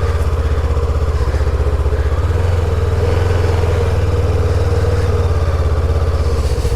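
Motorcycle engine idling steadily with an even, rapid pulse, just after being started.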